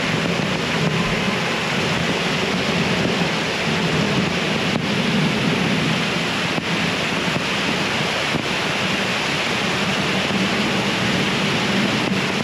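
Steady rush of floodwater pouring and churning, a loud unbroken wash of noise.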